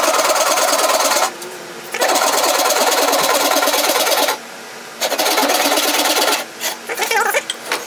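Japanese pull saw ripping along the grain of a softwood board: long steady rasping strokes of about two seconds each with short pauses between, turning into shorter, broken strokes near the end.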